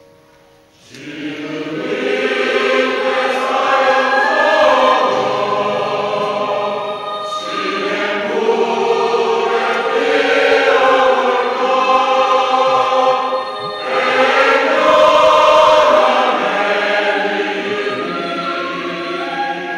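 Mixed choir of men's and women's voices singing a Korean choral song together, coming in about a second in after a soft pause. It goes on loudly in sustained phrases, with a brief breath between phrases a little past the middle.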